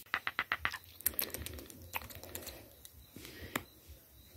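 Quick runs of small, sharp wet clicks from a baby vervet monkey's mouth as it sucks and chews on a finger, densest in the first second and then coming singly.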